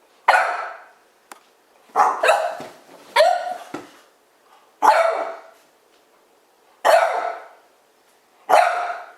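A dog barking during play: about seven sharp barks, one every second or two, with two pairs in quick succession early on.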